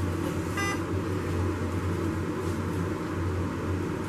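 Steady low rumble of hospital-room background noise, with one brief high chirp about half a second in.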